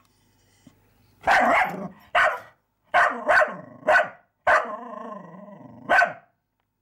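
Small white terrier barking at a mouse it can see through a glass door: after about a second of quiet, a run of six or so short, sharp barks, with one longer drawn-out bark in the middle.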